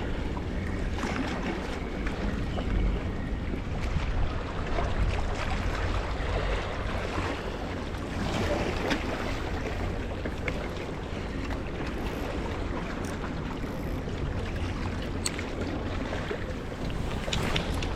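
Wind buffeting the microphone over the wash of sea water against a rocky shore, with a few faint clicks.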